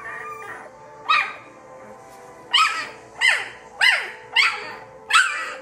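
A two-week-old golden retriever × Rottweiler puppy crying: six short, high yelps, each rising then falling in pitch. One comes about a second in, then five follow in a quick, even run from about two and a half seconds.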